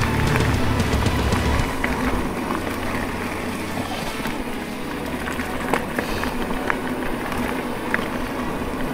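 Electric mountain bike being ridden on a trail. Heavy wind buffeting on the microphone for the first couple of seconds, then steady rolling noise from the tyres with a few sharp clicks and rattles from the bike.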